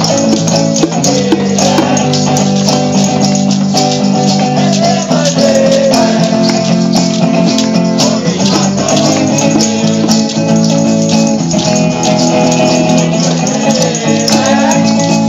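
Amateur band playing live: a group of voices singing together over strummed acoustic guitars, with shakers and a tambourine keeping a busy beat.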